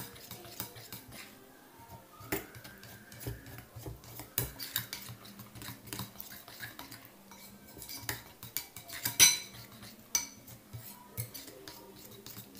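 A utensil stirring thin flour batter in a plastic bowl to smooth out its lumps, with irregular clicks and scrapes as it knocks against the bowl's sides; the loudest knock comes about nine seconds in.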